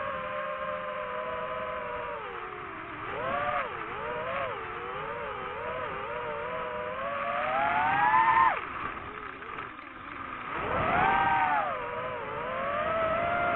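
Motor running and being revved up and down, its pitch rising and falling; it climbs to its highest about eight seconds in, drops off sharply, then picks up again.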